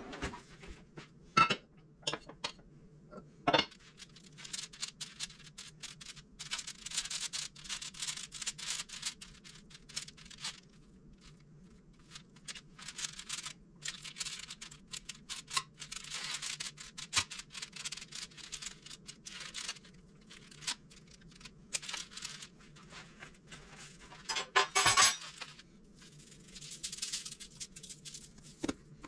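Handling sounds of food prep on a foil-lined baking sheet: a few sharp clinks and knocks, and long stretches of foil crinkling and scraping as a knife scores a whole pompano and seasoning is shaken over it. A steady low hum runs underneath.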